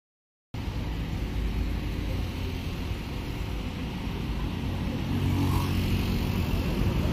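Volvo B11R double-decker coach's 11-litre six-cylinder diesel engine pulling away, a low engine rumble that grows steadily louder as the coach moves off. The sound cuts in suddenly about half a second in.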